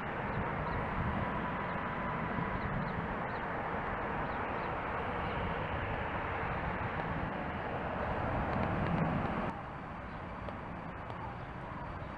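Bombardier Talent 2 electric multiple unit (DB class 442) pulling out of the station, its running noise building steadily toward a peak. It cuts off suddenly about nine and a half seconds in, giving way to quieter station background noise.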